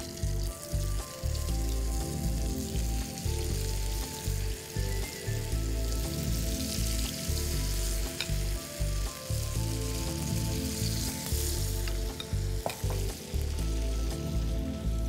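Hot oil sizzling and hissing in a frying pan as spoonfuls of shrimp fritter batter fry, over background music.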